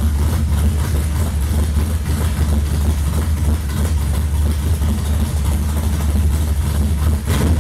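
Race car engine idling steadily with a fast, even low rumble.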